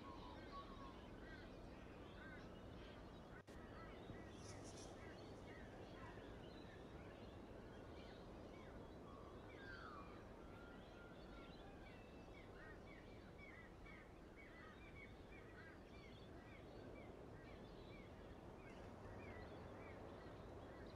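Near silence with faint background bird chirps, including a quick series of short repeated chirps in the second half, and one brief click about three and a half seconds in.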